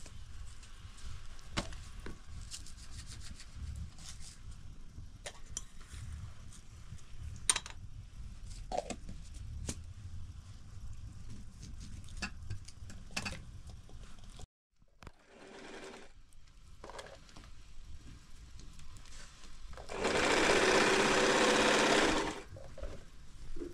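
Small electric sewing machine running steadily for about two seconds near the end, the loudest sound, then stopping and starting again. Before it come scattered light clinks and knocks of tea glasses and a teapot handled at a wood-fired stove, over a low rumble.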